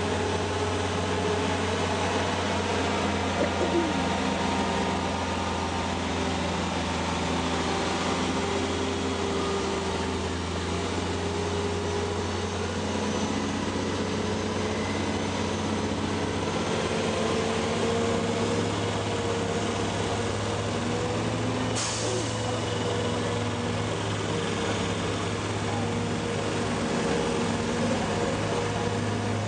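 Diesel engine of a Renault heavy-haul tractor unit running steadily at low speed while it pulls an oversize load, with one short air-brake hiss about three-quarters of the way through. Voices of bystanders are heard faintly underneath.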